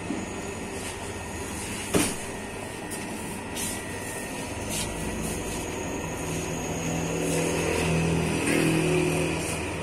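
Bakery dough mixer running, its kneading arm churning flour in a steel bowl with a steady mechanical drone. A sharp knock about two seconds in, and a deeper hum swells louder between about seven and nine seconds in.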